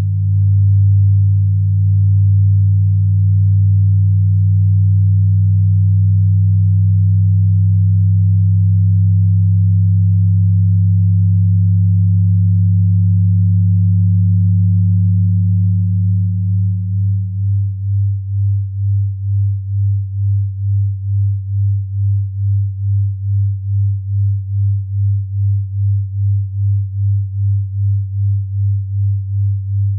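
Deep electronic sine tones: a loud steady low hum with a second, higher tone above it. The higher tone fades out about two-thirds of the way through, leaving the low hum throbbing in a slow, even beat about twice a second.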